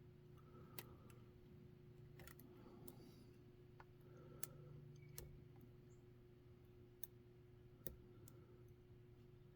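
Faint, scattered metallic ticks of a pick hook working the spring-loaded wafers inside a Reese Towpower coupler lock's wafer core while tension is held, about seven ticks at uneven intervals over a low steady hum.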